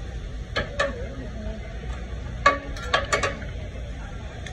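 Metal spatula clinking and tapping on a steel teppanyaki griddle: two strikes about half a second in, then a quick run of clinks around three seconds in, over a steady low hum.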